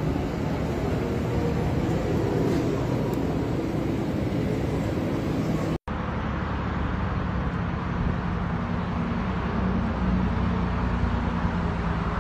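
Steady low rumble of a running motor vehicle, broken by a brief complete dropout about six seconds in.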